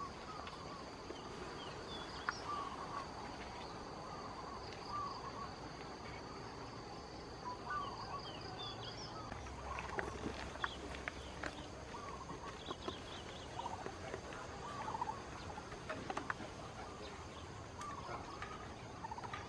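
Farmyard ambience: short, repeated clucking calls of domestic fowl, with a few higher chirps, over a steady high insect drone that fades out about nine seconds in. A few light clicks are scattered through.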